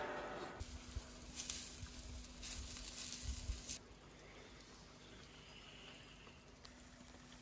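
Rustling and a few soft knocks while the skewered ribs are handled at the stone tandoor, in two short spells during the first half. Then it goes quiet apart from a faint steady hum.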